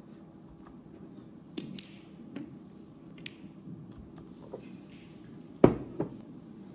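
Snooker balls clicking: sharp single clicks of cue tip on cue ball and ball striking ball, a few scattered through, with the loudest pair of clicks close together about two-thirds of the way in.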